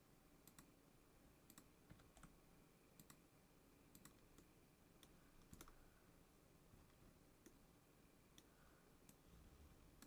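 Faint, irregular clicks of a computer keyboard and mouse, about fifteen over ten seconds, as keyboard shortcuts and mouse clicks are used.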